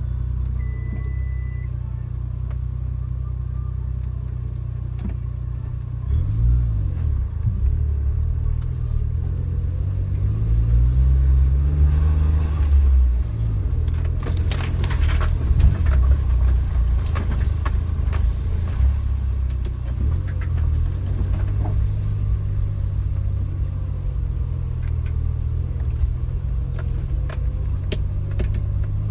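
Suzuki Jimny driving, its engine running steadily and revving up about six seconds in and again a little later before settling back, with scattered light clicks and rattles throughout.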